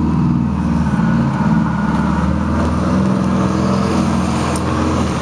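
A motor vehicle's engine running, a steady low hum.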